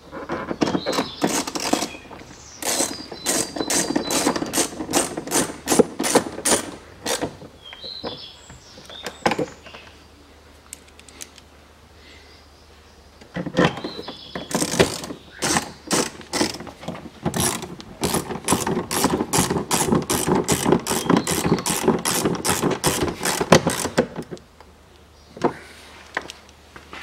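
Ratcheting screwdriver clicking as it drives the door-trim screws inside the pull-handle recess of a Range Rover Evoque front door. There are two runs of quick, even clicks, about three a second, with a pause of several seconds between.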